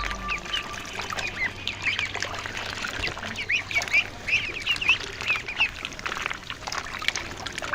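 A group of ducklings peeping: many short, high-pitched peeps overlapping continuously.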